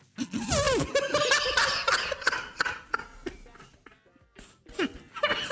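A short burst of music lasting two to three seconds, then people chuckling and laughing near the end.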